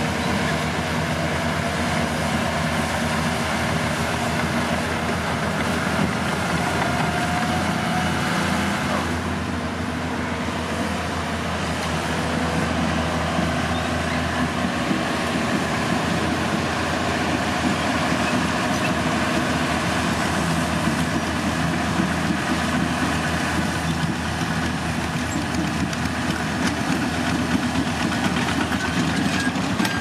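Caterpillar crawler bulldozer's diesel engine running steadily at work, with the clatter of its machinery; the engine note changes about nine seconds in.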